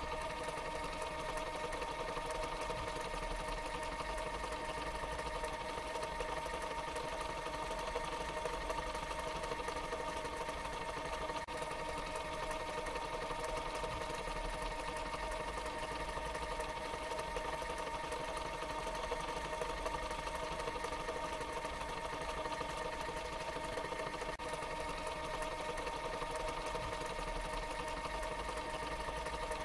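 Tape machine fast-forwarding: a steady motor whir with a constant hum and a fine, rapid mechanical chatter.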